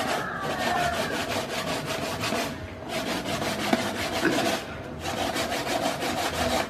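Raw fish being scraped by hand with a utensil: rapid, even rasping strokes in three runs, with short pauses about two and a half and five seconds in.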